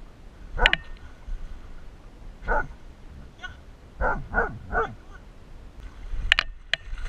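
Scottish deerhound whining while swimming: five short cries, each falling steeply in pitch, the last three in quick succession. Sharp splashes of water come near the end.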